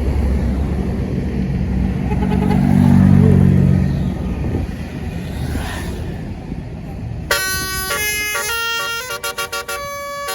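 A heavy diesel engine rumbles loudly and fades over the first few seconds. About seven seconds in, a tour bus's multi-tone "basuri" telolet horn starts playing a tune in stepping chords, with a quick stutter of short notes near the end.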